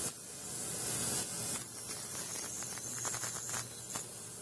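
Harbor Freight ultrasonic cleaner running with a diamond sharpening stone dipped in its hot soapy water, a hissing noise with a thin, very high whine that gets louder through the middle; the cavitation is loosening metal dust from the stone.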